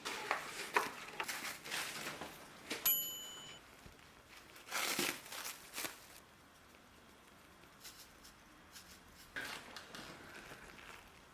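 Kitchen handling noises: rustling and crinkling with light knocks. About three seconds in comes a click and a short electronic beep, the kind a microwave oven gives. A louder rustle follows about two seconds later.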